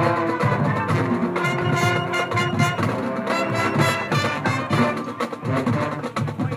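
High school marching band playing: brass section holding sustained notes over marching percussion.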